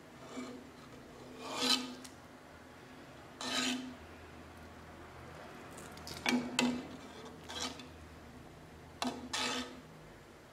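Metal ladle scraping against the side of a stainless steel pot in short strokes every second or two, skimming the foam off heating lemon juice syrup.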